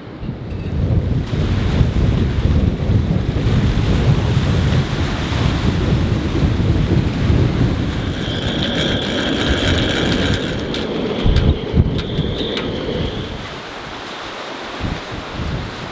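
Strong wind buffeting the microphone over choppy water, with waves washing in the background. A high whistling tone comes in about halfway through for several seconds, and the gusts ease near the end.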